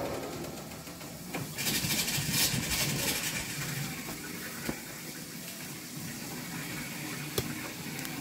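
Water rushing through the copper piping and mixing valve of a water heater as a valve is opened, with a louder hissing surge for about a second and a half, starting about a second and a half in, then a steadier flow with a couple of light clicks.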